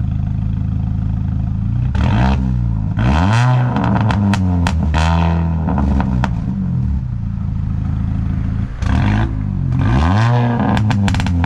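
Mini Cooper S R53's supercharged 1.6-litre four-cylinder revved several times from idle through a loud straight-piped exhaust (catalytic converter still fitted), the pitch climbing and falling with each blip. Sharp crackles and pops sound as the revs drop.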